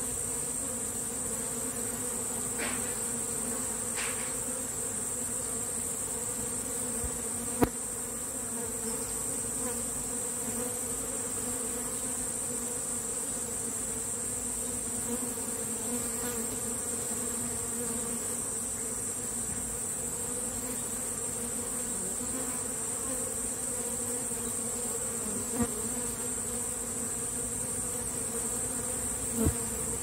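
A honeybee swarm clustered on a wooden hive box, buzzing in a steady low hum as it takes up residence. A steady high-pitched whine sits above it, with a few sharp ticks near the middle and end.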